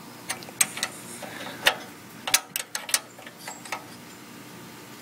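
Irregular sharp metallic clicks and taps from a hand wrench and small parts on the steel throttle and governor bracket of a Briggs & Stratton small engine, as the governor shaft clamp nut is worked on. There are about ten clicks, several close together, in the first four seconds.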